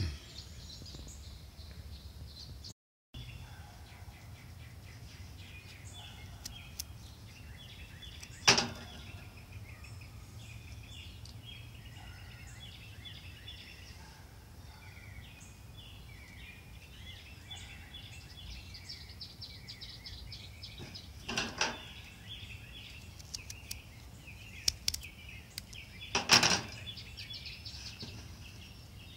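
Outdoor background noise with small birds chirping repeatedly, and three short sharp knocks spread through it, the last one the loudest.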